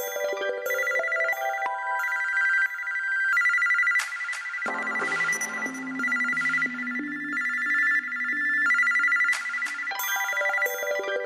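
LG eXpo phone ringtone playing: a constant trilling two-tone telephone-bell ring over a synthesized melody of stepping notes. A lower bass line joins about halfway through and drops out near the end, where the pattern starts over as the ringtone loops.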